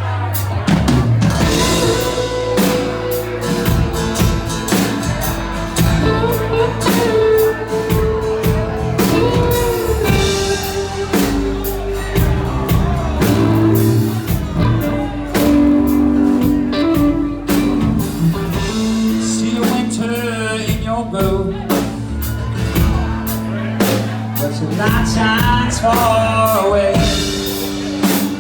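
A band playing a song with drum kit, guitar and a singing voice.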